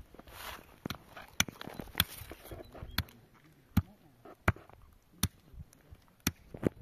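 A series of sharp knocks, about nine of them at uneven intervals of roughly a second, with a brief rushing noise near the start.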